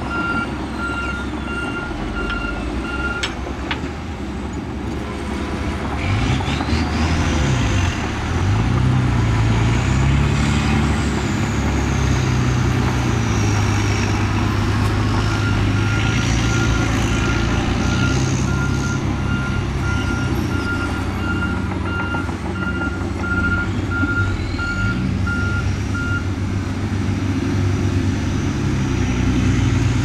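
Diesel engines of heavy earthmoving machines running, their pitch rising and falling with the work. A reversing alarm beeps steadily in the first few seconds and again for about ten seconds past the middle.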